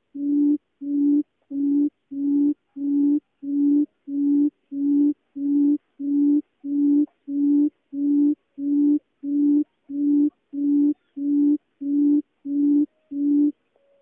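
Barred buttonquail's booming call: a long, even series of low hoots, each held at one pitch, about three every two seconds. It stops just before the end.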